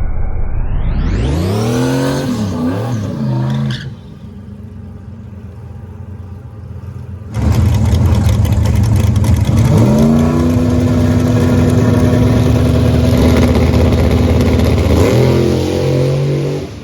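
Drag-race car engines at full throttle: one launches, its pitch climbing steeply with a couple of dips as it shifts. After a sudden cut, another run comes in loud, its pitch rising again and then holding steady.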